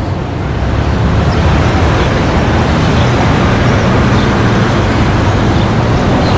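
Street traffic ambience: a steady mass of road vehicles running, a deep rumble with no single event standing out.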